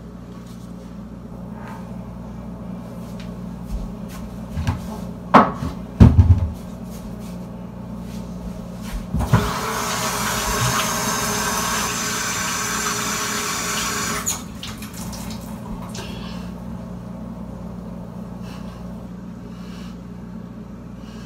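Kitchen sink tap running for about five seconds, starting around nine seconds in and cutting off. A few sharp loud knocks come a few seconds before it, and a faint steady low hum lies under everything.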